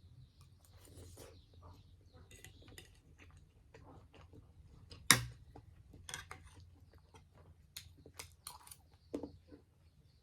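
Close-up eating sounds: chewing and irregular small clicks of a utensil against the dish, with one sharp knock about five seconds in.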